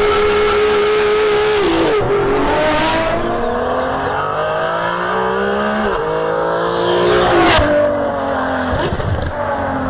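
Ferrari 599 GTO's 6-litre V12 pulling hard: its pitch holds high, drops sharply as it changes up about 2 seconds in, climbs steadily for several seconds, then drops again at the next upshift near the end.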